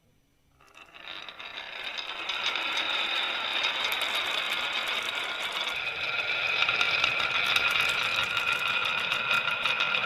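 Marbles rolling and clattering down a wooden marble-run track: a continuous rolling rattle with many small clicks that starts about half a second in and builds up over the next couple of seconds.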